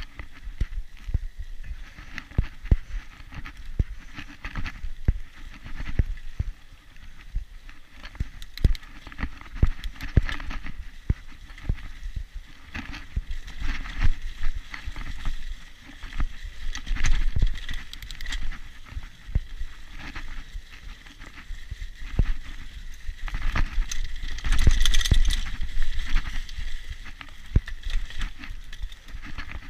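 Mountain bike riding over a rough dirt trail: a constant irregular run of knocks and rattles from the bike over roots and bumps, with low rumble underneath, getting louder about three-quarters of the way through.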